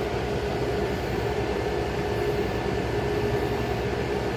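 A 35-year-old General Electric Carry Cool window air conditioner running steadily: an even fan and compressor hum with one held tone.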